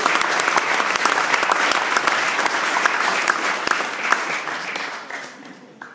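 Audience applauding, dense clapping that thins and dies away near the end.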